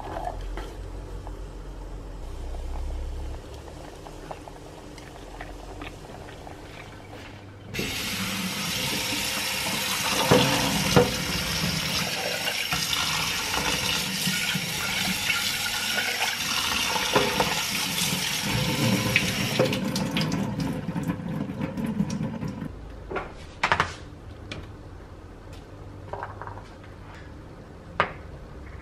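Kitchen tap running into a stainless-steel sink for about twelve seconds, splashing over a saucepan and rinsing cooked barley in a mesh strainer. It starts about eight seconds in and stops about twenty seconds in. A few sharp knocks follow near the end.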